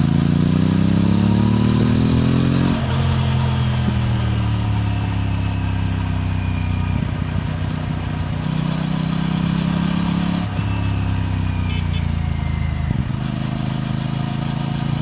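Aprilia RS 457's parallel-twin engine and exhaust heard from the moving bike. The revs climb for about three seconds and drop suddenly at an upshift, then sink slowly as the bike rolls off. Near the middle they climb again, drop at a second shift, and settle into a steady run.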